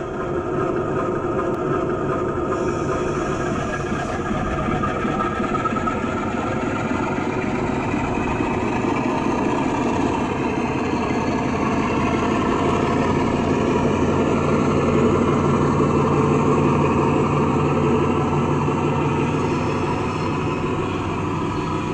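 DCC sound decoder in an O gauge Class 47 model playing a Sulzer 12LDA28 diesel engine through a large passive-radiator speaker: a steady engine note that grows a little louder around the middle, with a subtle turbocharger whistle on overrun.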